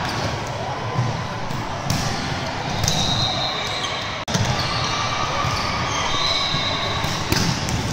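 Volleyballs being hit and bouncing on a hardwood gym floor, with sharp smacks about two, four and seven seconds in, over the steady din of an echoing gym and a few short high squeaks.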